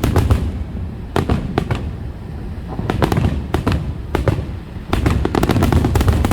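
Fireworks finale: rapid volleys of aerial shell bursts banging over one another, with a continuous deep rumble. Dense clusters of sharp cracks come about a second in, around three to three and a half seconds in, and in the last second and a half.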